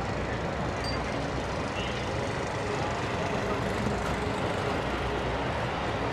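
Steady city street traffic: the continuous rumble of passing cars, trucks and buses.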